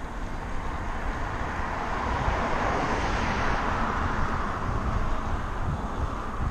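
A car overtaking from behind. Its tyre and engine noise swells to a peak about three seconds in and fades as it pulls away, over a steady low wind rumble on the microphone.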